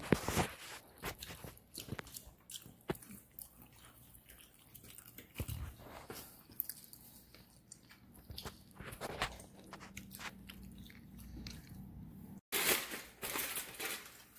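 Close chewing and crunching of food, with scattered small clicks and crunches. Near the end, after a cut, aluminium foil crinkles.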